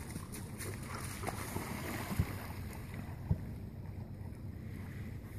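Wind rumbling on a phone microphone, with two soft thumps about two and three seconds in.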